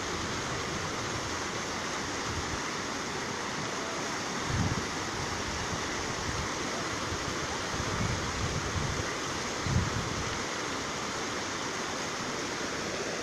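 Steady rush of a muddy river in flood, with a few low bumps of wind on the microphone about four, eight and ten seconds in.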